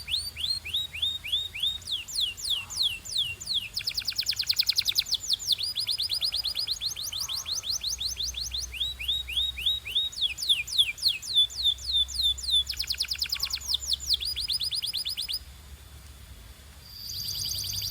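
Canary singing: rapid trills of quick repeated notes, each note falling in pitch, switching to a new trill every second or two. The song pauses briefly about 15 s in, then resumes with a steady high whistled note under faster trills.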